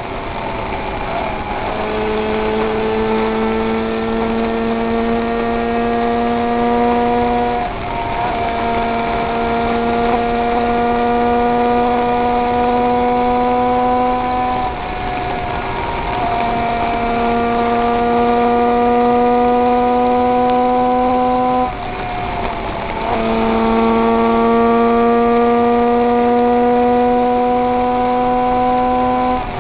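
König 500cc racing motorcycle engine running hard at speed, its pitch creeping slowly upward over several seconds at a time. The run is broken by three brief dips in pitch and loudness.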